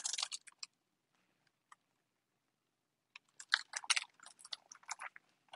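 A hardcover picture book being handled, its pages rustling and crinkling as it is turned around and a page is turned. There is a short rustle at the start, a quiet pause, then a longer, crackly rustle from about three seconds in.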